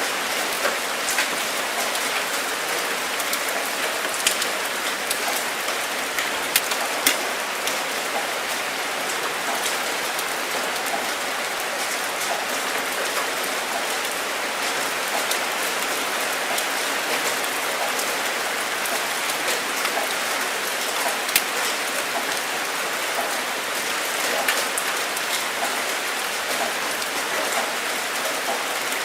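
Steady rain falling on a surface, a constant hiss with scattered sharper drop ticks, a few louder single drops standing out.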